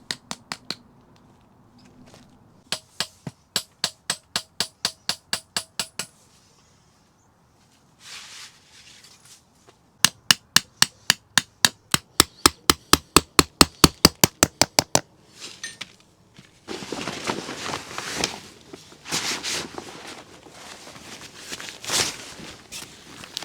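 Hammer driving tent pegs in quick, even runs of sharp blows, about three to four a second, with pauses between the runs. A rough rustling noise follows over the last several seconds.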